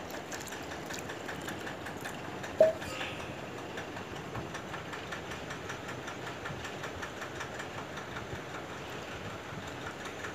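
Wooden spoon stirring thin rava dosa batter in a steel bowl: a steady run of quick, even scraping and knocking strokes. One sharp, louder knock comes about two and a half seconds in.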